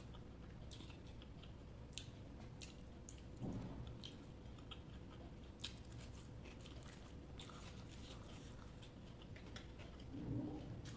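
Close-up eating sounds: a person chewing and biting rice with egg curry, with scattered soft wet mouth clicks and smacks. A brief louder low sound comes about three and a half seconds in and again near the end.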